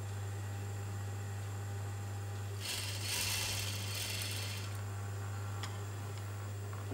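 Juki industrial sewing machine runs a short burst of stitching, about two seconds long, starting a little under three seconds in, over a steady low hum. A single sharp click follows about a second after it stops.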